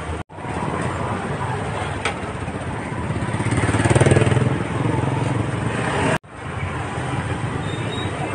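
Busy street traffic noise, with a vehicle passing close by and loudest about four seconds in. The sound cuts out for a moment twice.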